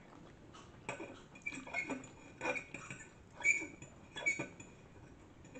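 Metal fork clinking and scraping on a ceramic plate as noodles are twirled, mixed with chewing. It comes as a string of short sounds from about a second in until past four seconds.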